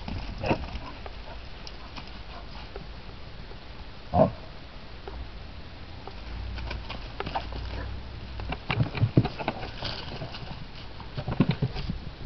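Short, sharp animal calls over a steady background: one just after the start, a loud one about four seconds in, and quick clusters around nine seconds and again near the end.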